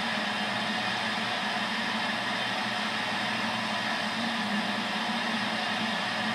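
Stadium crowd cheering, a steady unbroken wash of noise, heard through a television's speaker.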